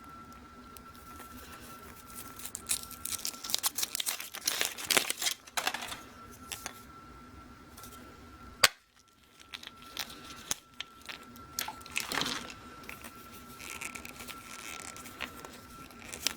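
Foil wrapper of a chocolate surprise egg being torn and crinkled off by hand, in irregular rustling and clicking bursts, with one sharp snap about halfway through.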